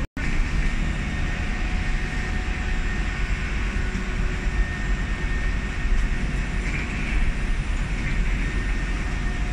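Steady roar and hum of a parked airliner's ground machinery heard at the aircraft door, with a faint steady whine over a low rumble. The sound cuts out for an instant just after the start.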